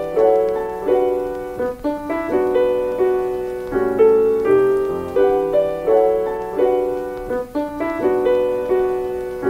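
Background piano music: a melody of single struck notes, each ringing and fading before the next.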